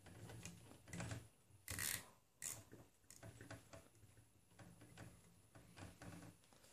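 Nylon zip tie being threaded through the plastic X carriage and pulled tight around the timing belt. Faint clicks and handling rustle, with two louder short rasps around two seconds in.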